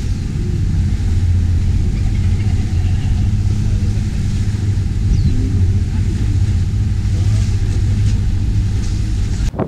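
Speed boat's engine running steadily with a deep rumble, mixed with the rush of water and wind past the hull; the sound cuts off abruptly near the end.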